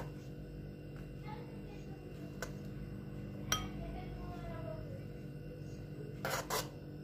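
A metal utensil clinking and scraping against a stainless-steel mixing bowl as whipped cream is scooped out into a small bowl: a few sharp clinks, each with a brief ring, and a couple of short scrapes near the end, over a steady low hum.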